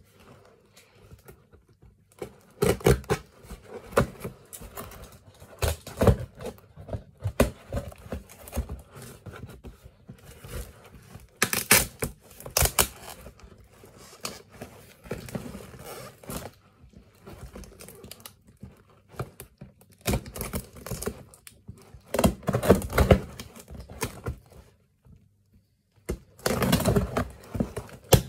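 A taped cardboard box being opened by hand: irregular scratching, picking and tearing at the packing tape, with knocks against the cardboard. Louder rasping tears come about 12 s in, about 22 s in and near the end.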